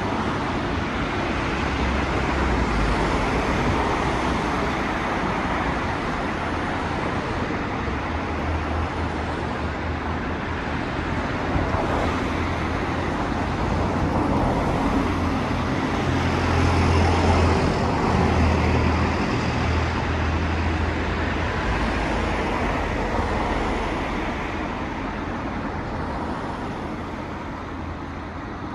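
Steady road traffic noise: a continuous rumble and hiss of passing vehicles, a little louder in the middle.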